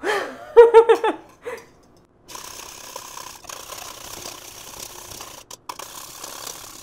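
A brief burst of a woman's voice, then a wire whisk scraping rapidly and steadily around a stainless steel mixing bowl as egg yolk and oil are beaten into mayonnaise by hand, the whisking played back in fast motion.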